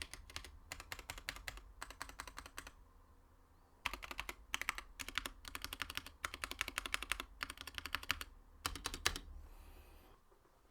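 Fast typing on a Monstargears Ninja 87 mechanical keyboard with yellow switches, PBT keycaps, an aluminium plate and an acrylic case, in quick runs of keystrokes. It pauses for about a second a little under a third of the way in, and stops shortly before the end.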